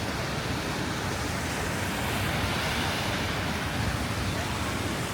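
Steady rushing outdoor noise of a city street in a snowstorm, wind and distant traffic blended into an even hiss with no distinct events.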